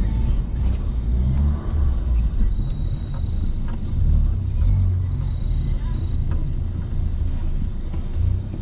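Škoda car driving, heard from inside the cabin: a steady low rumble of engine and tyres on the road.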